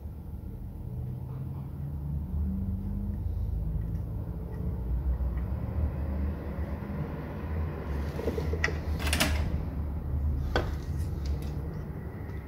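A steady low hum, with a few sharp clicks and knocks about nine to eleven seconds in as soldering tools and the modem circuit board are handled on the bench.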